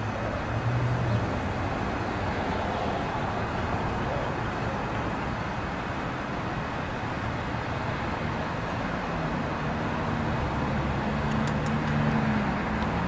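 Amtrak passenger train of Amfleet coaches running on the rails as it pulls away: a steady rumble with a low drone that shifts slightly in pitch.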